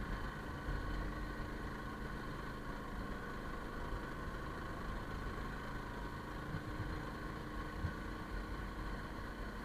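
Motorbike engine running steadily while riding, its even hum over a low rumble of road and wind.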